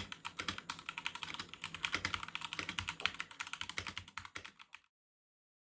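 Fast typing on a MageGee MK-box 65% mechanical keyboard: a quick, uneven run of key clacks, several a second, that stops a little over three-quarters of the way through.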